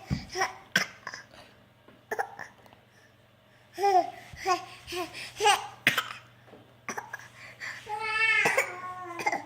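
A baby's short high-pitched voiced bursts, babble and fake coughs, in a cluster near the start and another about four to six seconds in, with a quiet gap between. Near the end comes one longer drawn-out squealing call.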